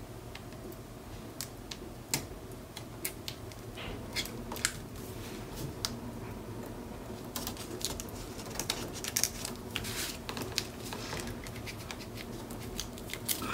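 Hands and a bone folder working patterned cardstock: scattered small clicks, rustles and scrapes as the paper is pressed and slid over, coming thicker in the second half.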